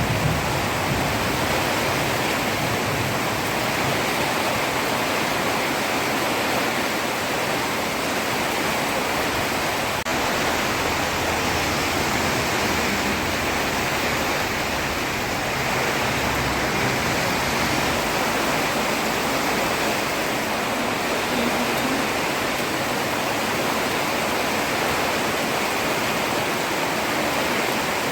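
Heavy rain pouring onto a road: a steady, even hiss.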